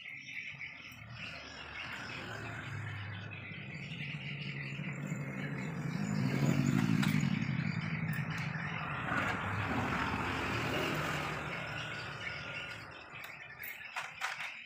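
A motor vehicle passing by, its engine sound swelling to a peak about halfway through and then fading away. A few small clicks near the end.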